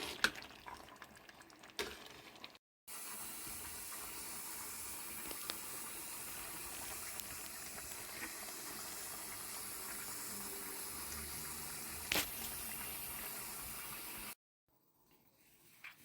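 Steady, even watery hiss lasting about eleven seconds, starting and stopping abruptly at edits, with a few small clicks in it; a few faint clicks come before it.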